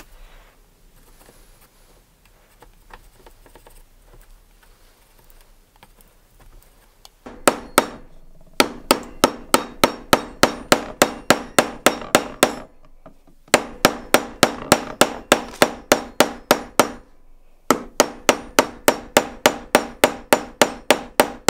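A hammer driving a wooden wedge into the eye of a hammer handle to tighten the head on it. After several quiet seconds come quick runs of sharp blows, about three or four a second, broken by two short pauses.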